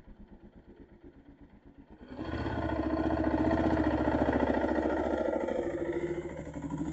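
Dirt bike engine pulsing quietly at low revs, then opened up sharply about two seconds in and running loud and steady under throttle as the bike climbs the trail.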